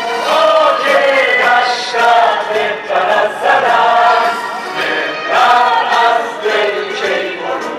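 Several voices singing a song together, in phrases of about a second.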